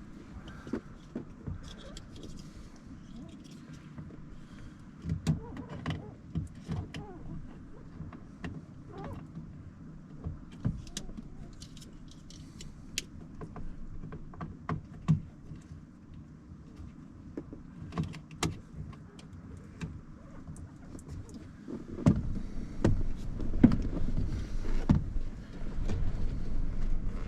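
Scattered clicks and knocks from work on a car's door panel and window-switch parts, becoming louder and more frequent over the last five seconds or so.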